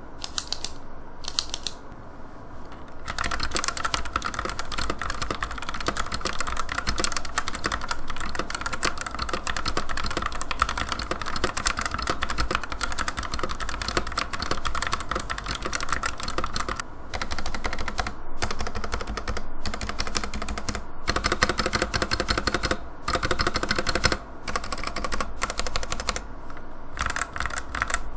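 Fast typing on a Womier WK61 60% mechanical keyboard: a few single key clicks, then a dense run of quick keystrokes broken by several brief pauses.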